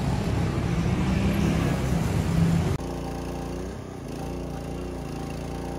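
Loud, noisy outdoor street sound for about the first three seconds. Then a small portable generator engine runs steadily at a constant pitch.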